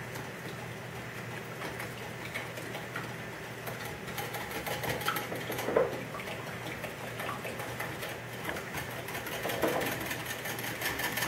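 Handheld electric milk frother whirring steadily as it whisks a runny pumpkin, egg, honey and almond-milk mixture in a glass bowl, with one brief louder knock about six seconds in.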